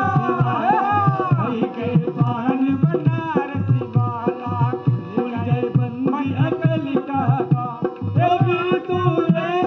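Live folk music: a barrel hand drum beats a steady rhythm under a melody that bends in pitch, growing fuller near the end.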